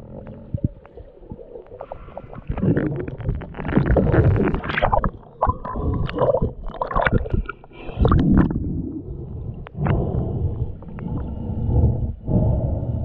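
Muffled water sloshing and gurgling around an underwater camera in shallow surf, in irregular low rumbling surges with scattered small clicks and knocks as the camera moves below and through the surface.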